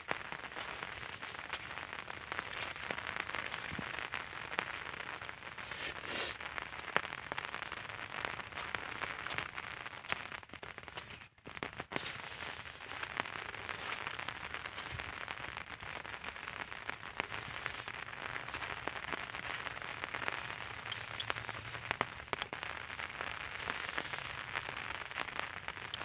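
Steady rain pattering on a pond's surface and the wet grassy bank, a dense crackle of small drops; it dips out briefly about eleven seconds in.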